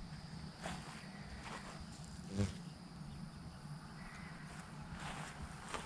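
Quiet outdoor farmyard ambience with faint insect chirring. About two and a half seconds in, an animal gives one short, low call.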